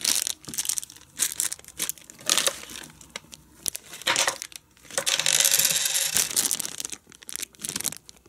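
Plastic and paper parts packaging crinkling and rustling in the hands in irregular bursts, with one longer, denser crinkle lasting about a second about five seconds in.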